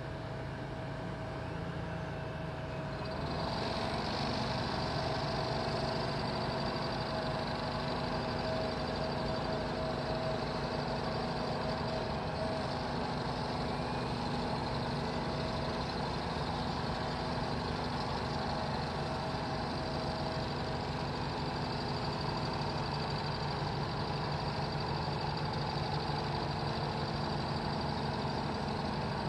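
A construction machine's engine running steadily, with a steady whine over it; about three seconds in it grows louder and brighter, then holds.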